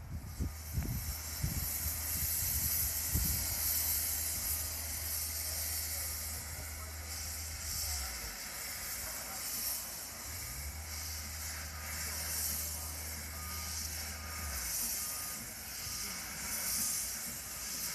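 Narrow-gauge Hunslet saddle-tank steam locomotive pulling away with its cylinder drain cocks open: a loud, steady hiss of escaping steam that swells and fades in waves.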